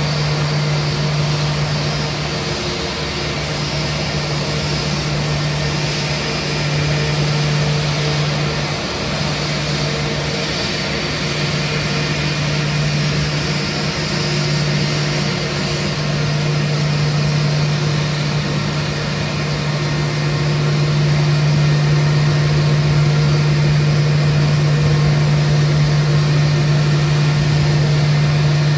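Airbus A319 jet engines at idle thrust as the airliner taxis in: a steady loud jet noise with a strong low hum, growing a little louder about two-thirds of the way through as the aircraft comes closer.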